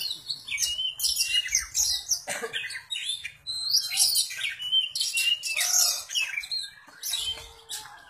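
Oriental magpie-robin (kacer) singing a fast, varied song of whistles, chirps and rising and falling notes, practising songs copied from other birds.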